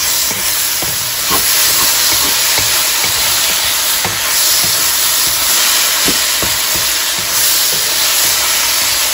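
Mushrooms and green onion stems sizzling in a hot stir-fry pan, with a steady hiss. Short, scattered clicks of the utensil against the pan as the food is stirred.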